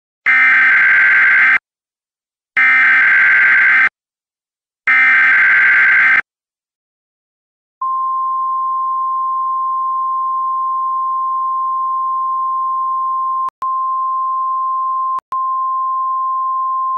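Emergency Alert System SAME header: three harsh, screeching bursts of digital data tones, each about a second and a half long. After a short pause comes the steady, single-pitch NOAA Weather Radio 1050 Hz warning alarm tone, broken twice by tiny clicks, which signals a warning about to be read.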